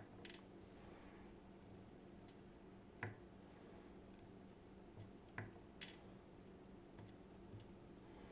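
Faint, scattered small clicks, about five over several seconds, from tiny lock pins and internal parts of a dimple lock being handled and set down.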